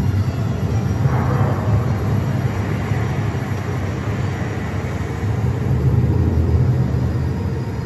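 Deep, steady rumbling sound design from a projection-mapping show's soundtrack, played over loudspeakers, with a rushing swell about a second in.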